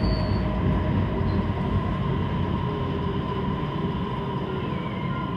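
Siemens Inspiro metro train running slowly along a station platform, heard from inside the car: steady rumble of the running gear with a constant high whine, getting gradually quieter as the train slows on arrival.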